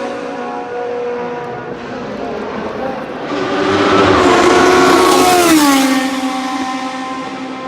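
Racing car engines running hard on a circuit: one car grows loud from about three seconds in and goes past, its high engine note dropping in pitch just before six seconds, with another engine's note heard under it.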